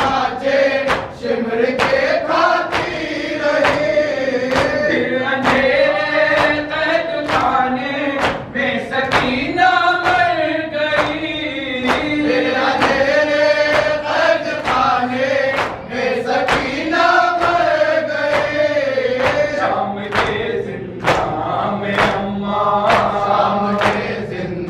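A group of men chanting a nauha together in one voice, kept in time by rhythmic chest-beating (matam): hands striking chests in a steady beat about twice a second.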